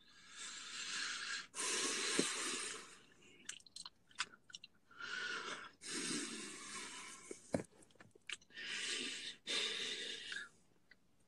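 A young man crying in loud, wheezing sobbing breaths, each about a second long, coming in three pairs with short clicks between them.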